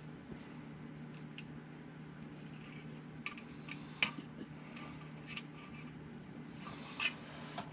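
Scattered light clicks and taps of a screwdriver and small servo parts being handled on a workbench, the sharpest about four seconds in, over a low steady hum.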